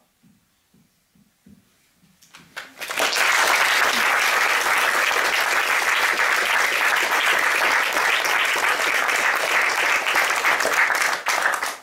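Audience applauding: a few first claps a little over two seconds in, then full, steady applause that breaks off near the end.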